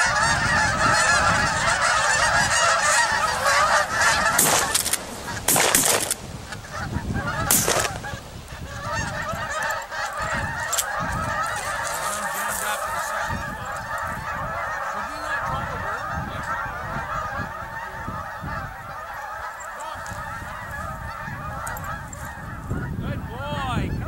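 A large flock of Canada geese honking, many calls overlapping into a continuous chorus; loudest for the first several seconds, then steadier and a little quieter. A few short noisy bursts cut in around five to eight seconds in.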